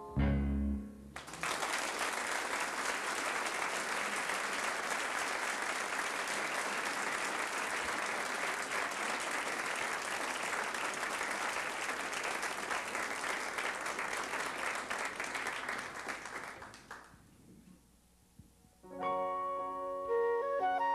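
A last piano chord rings for about a second, then an audience applauds for about fifteen seconds before the clapping dies away. After a short hush, a flute starts playing near the end.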